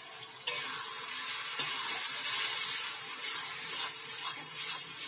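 Tomato-onion masala with freshly added ground spices sizzling in hot mustard oil in a metal kadai, stirred with a metal spatula that scrapes against the pan. The sizzling starts suddenly about half a second in as the stirring begins, with sharp scrapes of the spatula on the pan.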